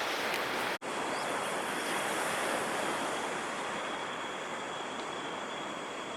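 Ocean surf from a typhoon swell, a steady rushing wash of breaking waves. The sound cuts out for an instant just under a second in.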